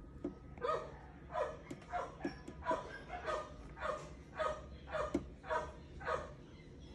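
A dog barking over and over in a steady run, about three barks every two seconds.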